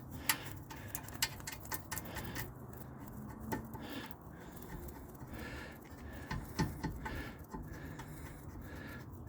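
Scattered light clicks and metallic clinks of hand work on a rear disc-brake caliper as its bolts are being fitted, over a faint steady low hum.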